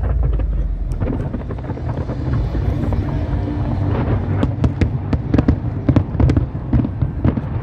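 Fireworks display: a continuous low rumble of shell bursts, with a rapid run of sharp cracking reports from about four seconds in.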